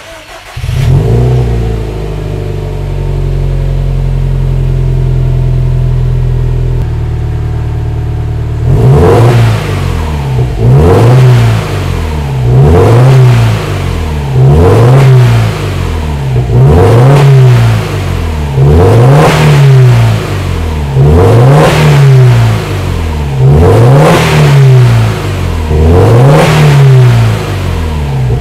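Subaru S207's turbocharged flat-four engine heard through its stock STI quad-tip exhaust: it starts, idles at a raised speed that drops lower about seven seconds in, then is revved in short blips about every two seconds, ten times.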